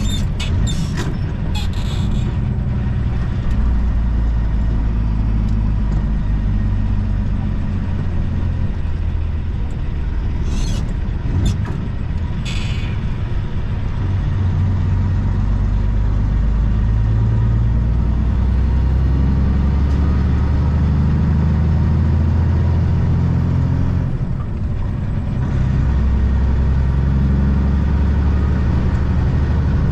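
Semi-truck diesel engine running steadily while driving, heard from inside the cab. There are short hisses about ten to thirteen seconds in, and the engine note dips briefly near twenty-four seconds.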